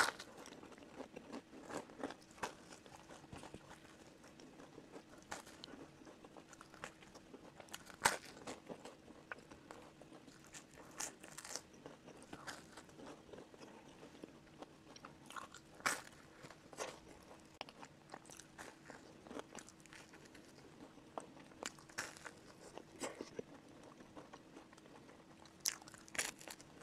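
Eating sounds: repeated bites into slices of whole-wheat toast covered in spreads, crunching, with chewing in between. The loudest bites come about 8 and 16 seconds in.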